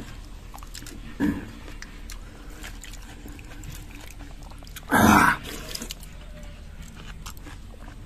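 Wet squelching and small clicks of a hand squeezing and stirring soaked fermented rice in water in an aluminium pot, with one louder, brief noisy burst about five seconds in.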